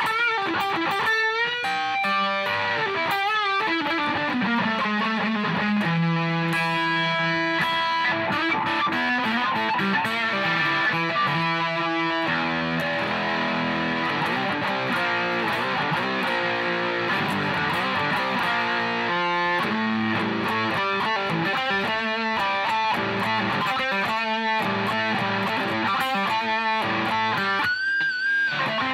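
Electric guitar through a JOYO Super Lead practice amp set to full distortion with its tone at full treble, played through a Fender Mustang III amp: continuous distorted riffs and lead lines with bent notes, ending on a held note with vibrato. The bridge pickup is a Seymour Duncan Hot Rails.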